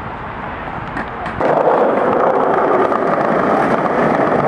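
Skateboard wheels rolling over stone paving close to the microphone: a steady rolling noise that starts suddenly about a second and a half in. Before it there is only quieter outdoor background with a low rumble.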